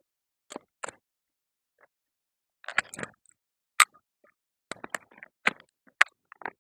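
Irregular sharp clicks and knocks from an Umarex Legends M712 BB pistol being handled, some single and some in quick clusters.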